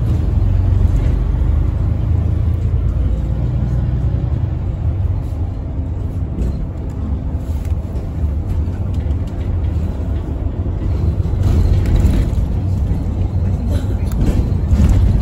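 West Coast Motors bus in motion, heard from inside the passenger cabin: a steady low rumble of the running bus and its tyres on the road. Light rattles and knocks come and go, and it grows louder briefly about twelve seconds in and again near the end.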